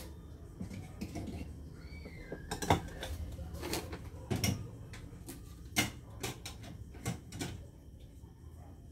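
Off-screen kitchenware being handled: irregular clatters and knocks of dishes and utensils, the loudest a sharp knock about three seconds in.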